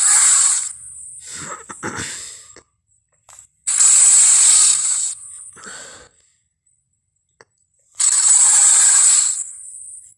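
Triceratops sound effect: three loud breathy, hissing bursts roughly four seconds apart, each about a second long, with quieter rasping sounds between them.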